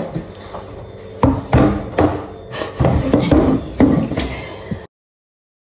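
A series of knocks and clattering: about eight sharp hits, roughly half a second apart, some with a short ringing tone. The sound cuts off abruptly near the end.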